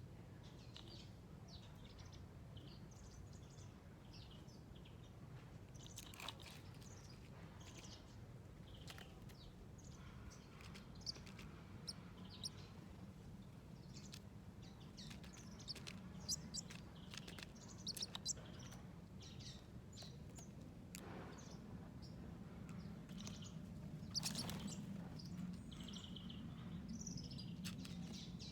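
Small birds giving short, scattered chirps and tweets, with a few brief clicks, over a faint steady low hum.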